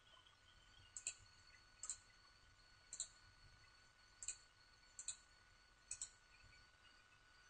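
Computer mouse button clicked six times, about once a second, each a faint quick double tick of press and release.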